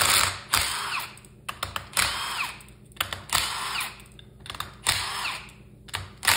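Cordless drill-driver spinning out the cylinder-head bolts of a Super Rhino 2 engine in short bursts, about one a second, each with a whine that falls in pitch, and light clicks between bursts.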